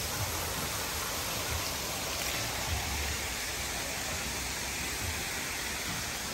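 A steady rushing noise with intermittent low rumbles.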